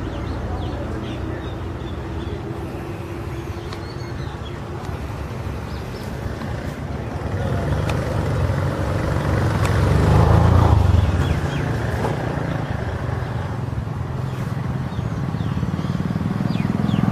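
Motor vehicle engine running, growing louder to its loudest about ten seconds in and then easing off.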